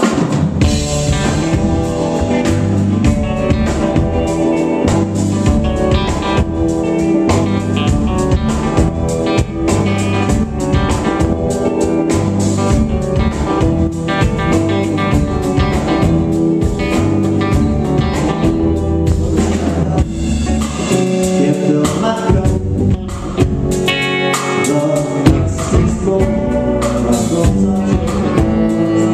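A live band playing a full, loud song on electric guitars and a drum kit.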